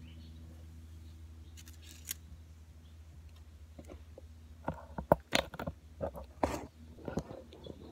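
Handling noise among dry banana leaves: a few faint clicks about two seconds in, then an irregular cluster of sharp clicks, scrapes and rustles in the second half, over a faint steady low hum.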